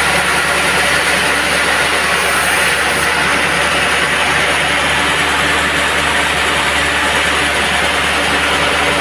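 Band sawmill running steadily: a continuous machine drone with a steady hum underneath.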